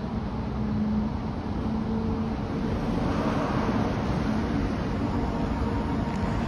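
Aerial tramway cabin riding down its cable: a steady rumble with a faint hum, growing a little louder and hissier about three seconds in as the cabin comes into the lower station.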